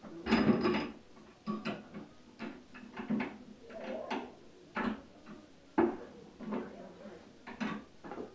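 Irregular metal clanks and knocks, about a dozen, from a home-made motorcycle lift's mechanism being worked by hand as the lift is tried out. The loudest clatter comes in the first second.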